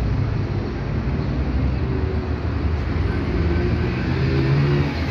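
Motor vehicle engine running close by in street traffic, a steady low rumble whose hum shifts in pitch near the end.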